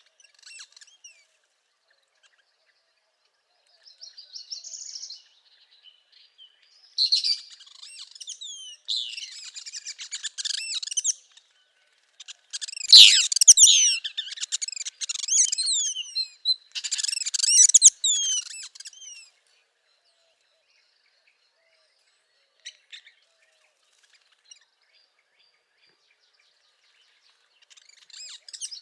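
Northern parula and other songbirds singing: a run of rapid, high-pitched song phrases with quick falling notes from about seven to nineteen seconds in, loudest near thirteen seconds, then a quiet stretch and a rising buzzy phrase near the end.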